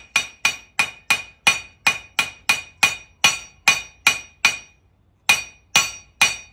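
Blacksmith's hammer striking iron on an anvil, forging a miniature horseshoe: about three blows a second, each with a clear metallic ring, with a short pause about five seconds in before the hammering resumes.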